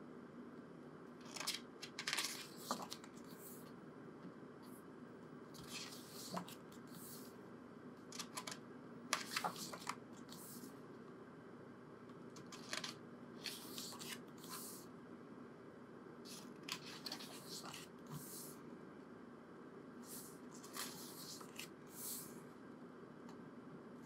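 Pages of a glossy photobook being turned and smoothed by hand: short papery rustles and slides every second or two. A low steady hum runs underneath.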